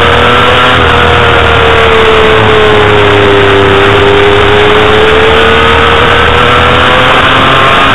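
Honda CBR250RR's 250 cc inline-four engine running hard at high revs, heard from onboard over a heavy rush of wind noise. Its pitch sags a little midway and climbs again.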